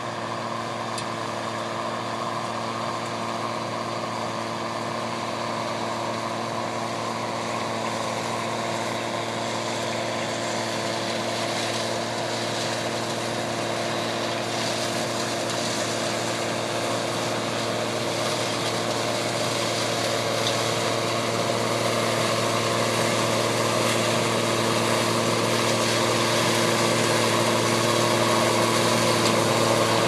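Combine harvester running steadily while cutting and threshing soybeans, its engine and machinery growing gradually louder as it approaches.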